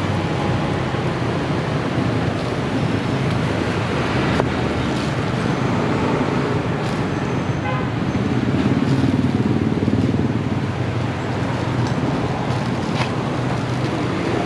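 Steady road traffic noise with one vehicle passing louder about eight to ten seconds in, and a few light clicks scattered through it.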